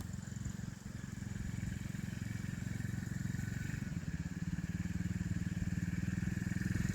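Mini ATV's 110 cc four-stroke single engine running at low, steady throttle under a cautious rider, getting a little louder from about four seconds in.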